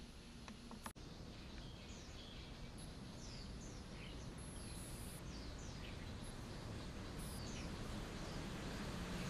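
Small birds chirping in short, quick falling calls over a steady low outdoor rumble, with a sharp click about a second in.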